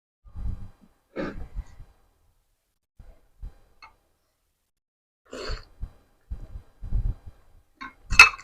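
Close-miked eating of spicy seblak soup with noodles and crackers: bursts of chewing and mouth noises with gaps between them, and a few sharp clinks of a spoon against the bowl, the loudest near the end.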